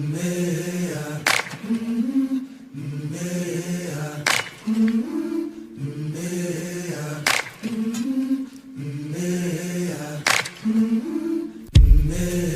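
Wordless, chant-like vocal music: layered voices sing short phrases, with a sharp percussive hit about every three seconds and a deep thump near the end.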